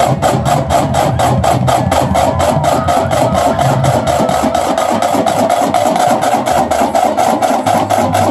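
Massed marching drumline playing a fast, even stream of drum strokes, about five a second, with bass drums sounding low notes underneath.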